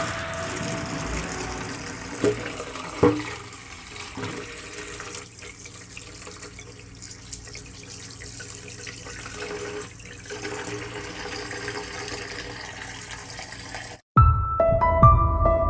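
Tap water running steadily into a stainless steel pot of potatoes in a sink while they are washed under the stream, with a couple of sharp knocks a few seconds in. Background music fades out at the start and returns loudly after a brief cut near the end.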